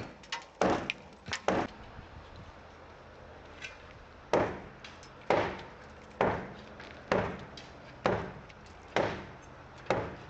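Repeated heavy strikes of a tool chopping into a wall: a few irregular blows at first, then a steady run of about one blow a second from around four seconds in.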